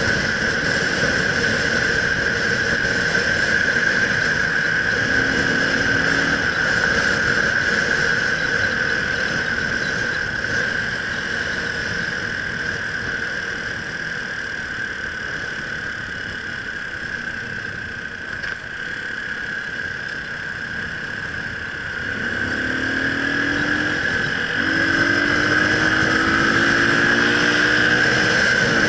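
Motorcycle at road speed: engine and wind noise with a steady high whine throughout. It is quieter through the middle. From about two-thirds of the way in, the engine note climbs in several short rising pulls as the bike accelerates through the gears.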